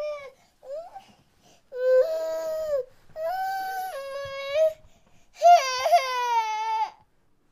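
A baby crying: two short whimpers, then three long wailing cries of about a second to a second and a half each.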